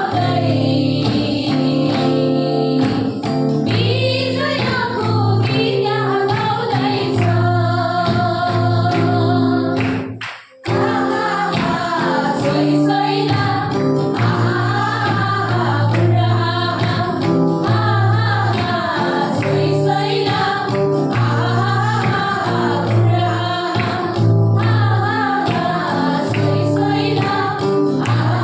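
A group of women singing a gospel worship song together with instrumental accompaniment and a steady bass line. The sound cuts out briefly about ten seconds in.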